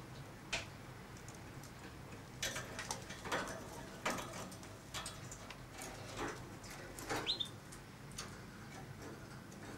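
Budgerigar cracking millet seeds off a spray of millet with its beak: small, irregular clicks and cracks. There is one brief high chirp about seven seconds in.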